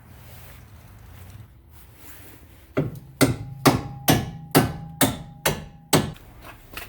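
About eight hammer strikes, roughly two a second, driving the anti-seize-coated lower through bolt into the strut and knuckle. A steady metallic ring sounds under the blows.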